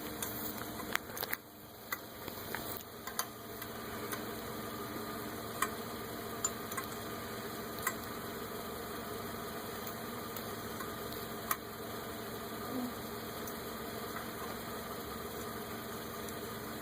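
Car engine idling steadily, with a few sharp clicks scattered over it, several close together near the start.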